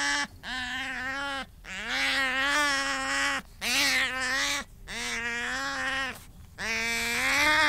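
Sea otters calling: a run of about six drawn-out whining squeals, each held at a steady pitch for about a second, one after another with short gaps.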